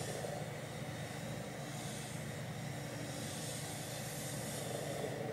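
Steady background hiss with a faint low hum (room tone), with no distinct sounds standing out.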